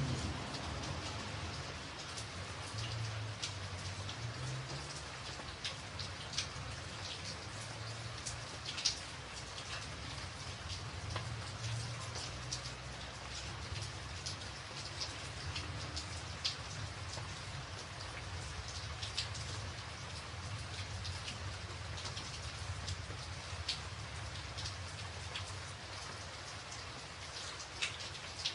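Steady rainfall: an even hiss with many scattered sharp ticks of single drops landing close by, over a low, uneven rumble.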